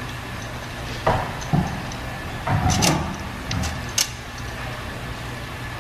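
Plastic Connect Four checkers clicking and knocking as they are handled and one is dropped into the grid. There are about five sharp clicks and knocks between one and four seconds in, over a steady background hum.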